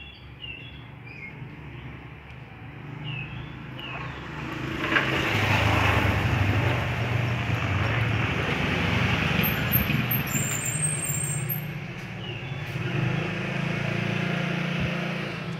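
A motor vehicle's engine running close by, its rumble swelling about four seconds in, staying loud for several seconds and easing off near the end.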